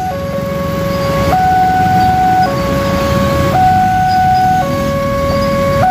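Electronic two-tone alarm switching back and forth between a low tone and a higher tone, each held about a second, over the low rumble of passing truck traffic.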